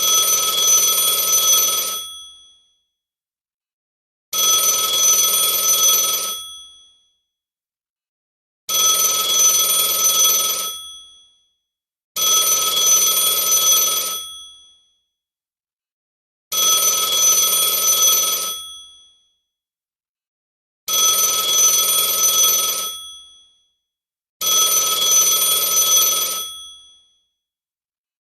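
Telephone ringing seven times, each ring about two seconds long, with pauses of about two seconds between rings.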